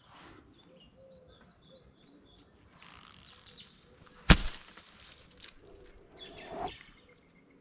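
Faint bird chirps, then one sharp crack about four seconds in: a slingshot being shot. A short rustling rush of noise follows near the end.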